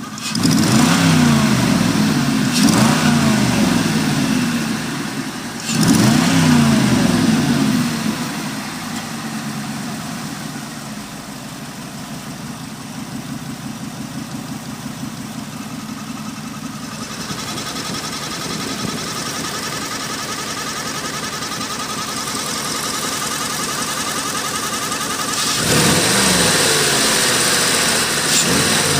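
Oldsmobile Aurora 4.0 V8 engine revved up twice and falling back to idle, then idling steadily, with a thin steady whine over the idle, and revving again near the end. The owner puts the whine down to the water pump, and the engine also has an exhaust leak.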